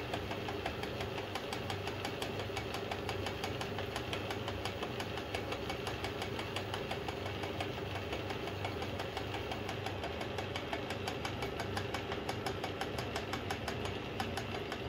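Atlas metal lathe running steadily under power with a fast, even ticking, taking a final boring pass through a bushing bore.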